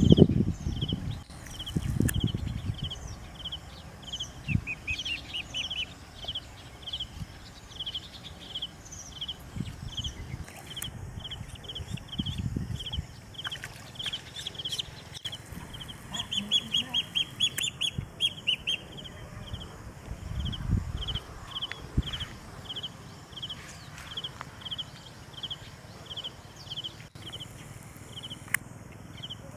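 Small animal's high chirping call, repeating evenly about twice a second, with a quicker run of calls partway through. Low thumps and rustling come and go, loudest at the very start.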